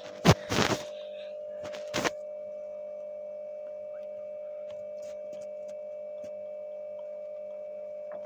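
A page of a picture book being turned and pressed flat: a sharp flap and a rustle within the first second, then one more sharp knock about two seconds in. Under it all is a steady electrical hum.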